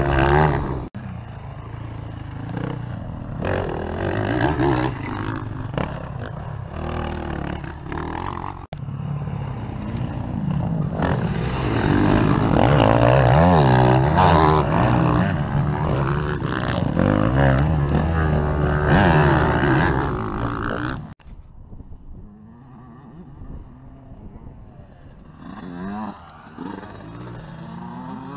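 Motocross dirt bike engines revving up and down in pitch as riders pass on the track, broken by abrupt cuts between clips. After a cut late on, the engines are fainter and farther off.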